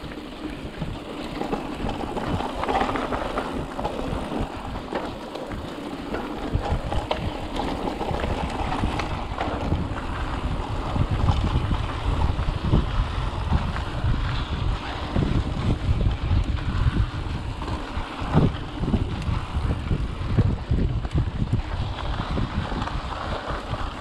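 Mountain bike rolling fast over a bumpy dirt trail: tyres rumbling on the dirt, the bike rattling and knocking over bumps, and wind rushing on the camera microphone. The rumble grows heavier about six seconds in.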